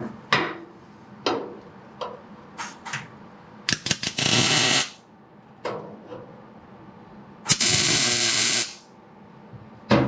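MIG welder laying two tack welds on a steel flat-stock battery tray, each a loud burst of about a second that stops abruptly. Before them come several light metallic knocks as the tray is set in place.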